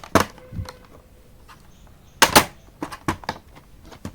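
Plastic snaps and clicks as a laptop's back cover is pried off, its retaining clips popping loose one after another; the loudest pair of snaps comes a little over two seconds in.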